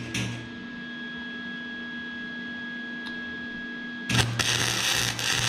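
Welding arc crackling as an exhaust pipe is tack-welded: a brief burst right at the start, then a steady faint hum, then a longer, louder crackling weld from about four seconds in with a short break near the end. The weld is hot enough to blow a hole straight through the pipe.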